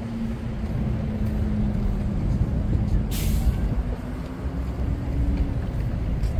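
Busy city road traffic with a large vehicle's engine humming steadily and then rising a little in pitch, and one short air-brake hiss from a bus about three seconds in.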